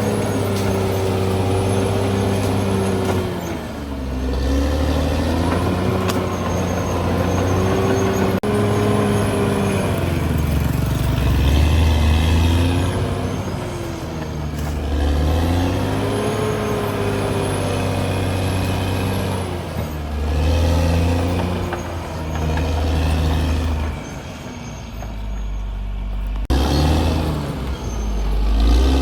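CAT D6R XL bulldozer's diesel engine running hard, its pitch sagging and climbing back again and again over the stretch, over a heavy low rumble. The engine quietens briefly toward the end, then comes back loud.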